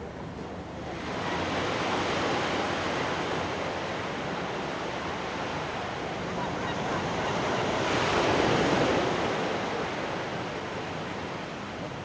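Small sea waves breaking and washing up onto the shore. The surge swells about a second in and again, louder, around eight seconds, then eases off.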